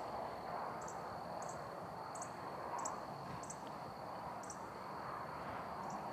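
Quiet rural outdoor ambience: a steady high-pitched insect trill, with short, higher chirps every half second to a second over a soft background hiss.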